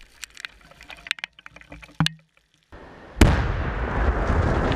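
Scattered sharp cracks and snaps, then a sudden loud explosive blast about three seconds in. A dense, steady rush of noise follows the blast and carries on.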